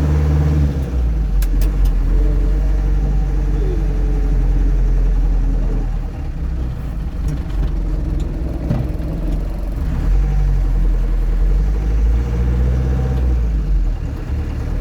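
Land Rover Series III driving, its engine running steadily with the note shifting in pitch a few times as it goes. A few short clicks about one and a half seconds in.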